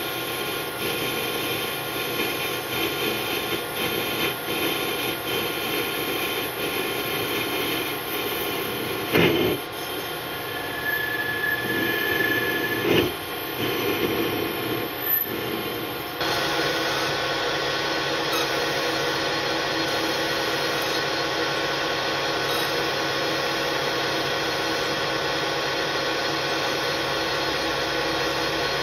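AL-1324 centre lathe running with a steady mechanical whine of several tones, turning a small metal part in its chuck. Two sharp knocks come about 9 and 13 seconds in, with a brief high tone between them. At about 16 seconds the machine sound steps up slightly and then holds steady.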